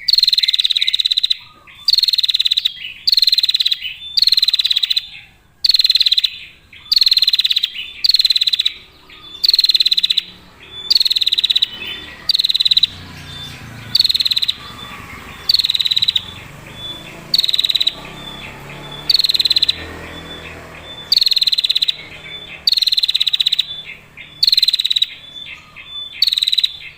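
Female prinia giving its long, clear rattling call: a short, buzzy, rapid trill repeated about once a second.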